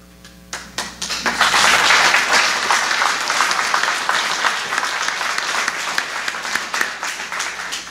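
Audience applauding. It starts with a few scattered claps, swells within the first second or so, and slowly tapers off toward the end.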